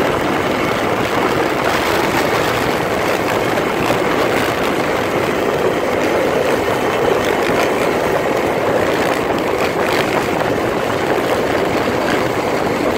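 Steady rush of wind on the microphone mixed with dirt bike engines running at highway speed, heard from a moving bike.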